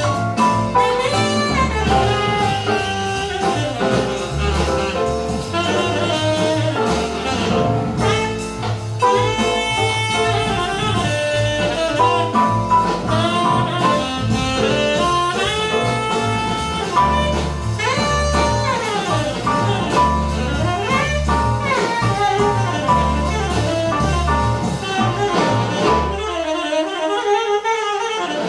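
Jazz music with a saxophone lead over a bass line, played back through Dynaudio Excite X14 bookshelf speakers. The bass drops out briefly near the end.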